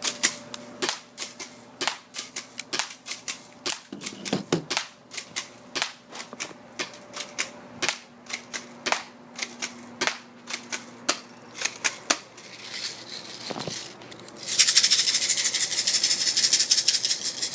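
Airsoft gun firing: a string of single shots, sharp clicks a couple of times a second, then near the end a fast continuous burst of shots lasting about three seconds, the loudest part.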